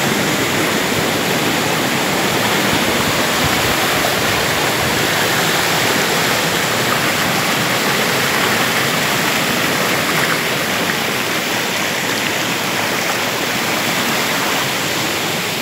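Steady rush of water from a waterfall on a rocky river, an even, unbroken noise that eases slightly near the end.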